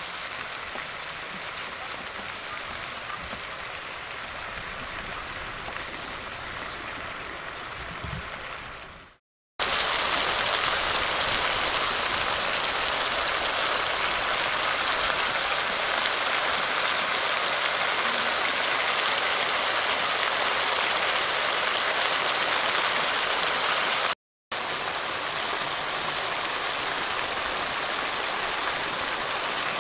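A quieter steady hiss fades out about nine seconds in. After a brief silence comes a louder, steady bubbling and sizzling from eel pieces stewing in a wok of sauce, broken once by a short gap near the end.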